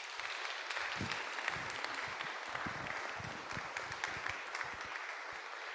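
Congregation applauding, a steady mass of clapping.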